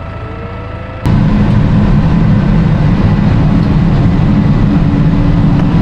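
Heavy diesel engine of a farm tractor running loud and steady; the noise cuts in abruptly about a second in, after a quieter steady hum.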